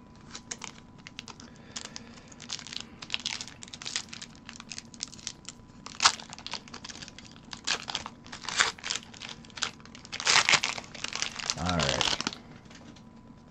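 Foil wrapper of a Pokémon booster pack crinkling and tearing as it is handled and opened by hand, in a long run of irregular crackles, loudest about six seconds in and again from about ten to twelve seconds.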